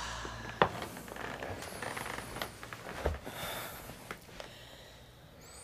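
A person breathes and their clothes rustle as they are helped to sit down on a bed. There is a sharp click about half a second in and a soft thump about three seconds in, as she settles onto the bed.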